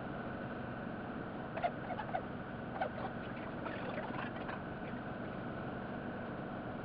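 Steady background hiss with a short run of faint squeaks and clicks in the middle.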